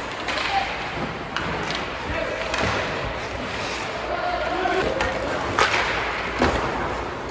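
Ice hockey play: skates scraping the ice, with sticks and puck clacking and two sharp cracks a little under a second apart near the end.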